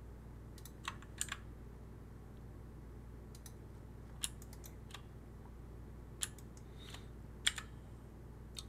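Irregular sharp clicks of a computer keyboard and mouse in use, single presses and short runs of clicks, over a steady low hum.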